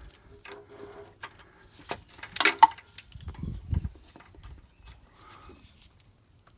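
Irregular clicks, clinks and knocks of tools and parts being handled during an oil filter change, with the loudest cluster of knocks about two and a half seconds in.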